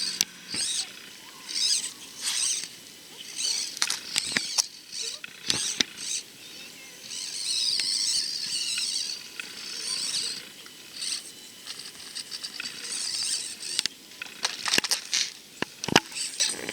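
Axial SCX24 micro RC crawler driving over rock: its small motor and gearbox whirring in short bursts of throttle, with a longer run of whirring midway, and the tyres and plastic chassis clicking and knocking on the rock, most often near the end.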